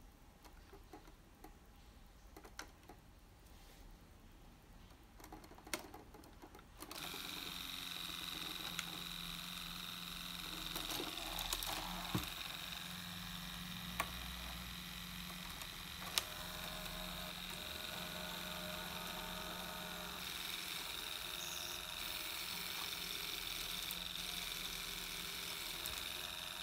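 A few sharp button clicks on a LEGO Technic Control Center, then about seven seconds in the helicopter model's small electric motors start and run steadily with a constant whir of gearing, turning the main rotor. A few more sharp clicks come through while it runs.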